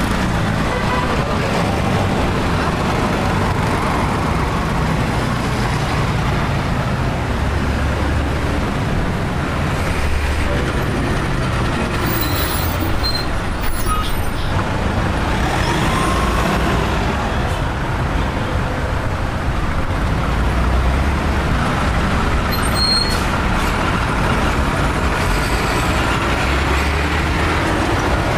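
Busy city street traffic, heavy vehicles such as buses and trucks running past in a steady rumble, with a few brief high-pitched squeaks about halfway through and again later.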